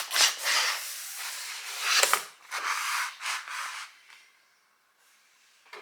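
Cardboard box and packaging scraping and rustling as a keyboard box is opened, a run of rubbing sounds that stops about four seconds in.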